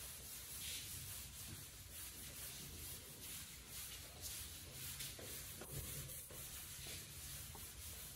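A duster wiping chalk off a chalkboard: faint, repeated rubbing strokes.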